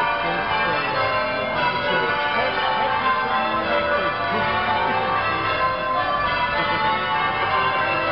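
Church bells rung in changes, the ring sounding without a break.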